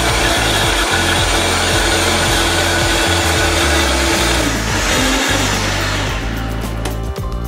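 Countertop blender running at high speed, blending a thick berry protein smoothie, then winding down and stopping about five or six seconds in. Background music with a steady beat plays underneath.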